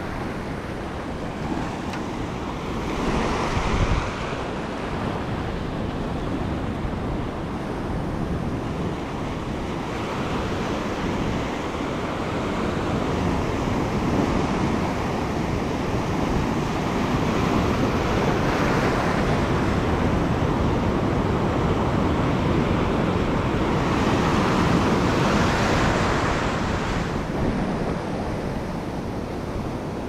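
Ocean surf breaking and washing across a rocky reef shelf: a steady loud wash of white water that swells louder several times as waves break.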